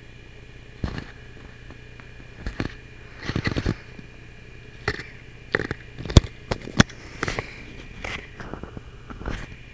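Irregular clicks, taps and knocks handled right at a Logitech webcam's built-in microphone, about a dozen, with a quick rattle of clicks about three and a half seconds in and the sharpest knock near the middle. Under them runs the webcam's steady electrical hum.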